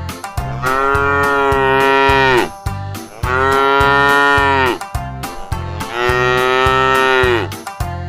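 A cow mooing three times, each moo long and drawn out, falling in pitch at its end, over a steady children's music beat.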